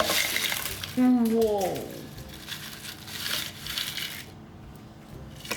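Hard, sugar-coated popcorn rustling and rattling as it is scooped and handled, in a few crackly bursts. A child's 'whoa' about a second in.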